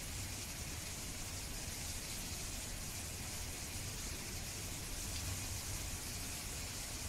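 Steady background hiss over a low hum, with no distinct events.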